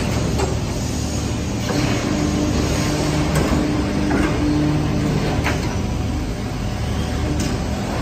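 1650-ton servo-driven aluminium extrusion press running with a steady low hum while its yellow carriage slides along. A steady whine joins in for a few seconds in the middle, and a few short hisses or clicks come through.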